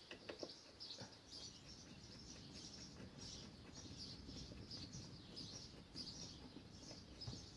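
Faint, high bird chirps repeating about twice a second, with a few light knocks underneath.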